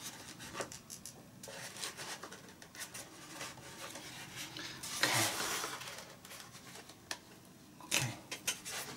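Small clicks and rubbing from hands handling a foam RC model jet's tail fin and rudder. There is a louder rub about five seconds in and a quick run of clicks near the end.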